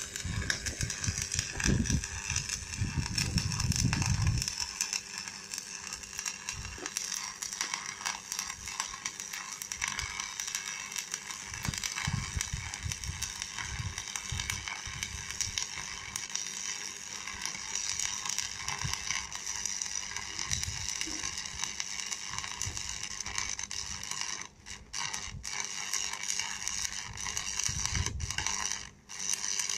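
Electric arc welder crackling steadily as a weld is laid on a steel bale spike frame. There is a low rumbling in the first few seconds, and the arc breaks off briefly twice near the end.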